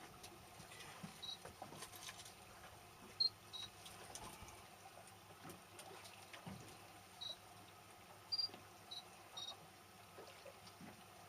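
Faint trickling and lapping water, with about seven short, high-pitched chirps scattered through it.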